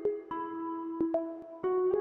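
Background music of plucked string notes, picked one after another at a few notes a second, growing a little louder about two-thirds of the way in.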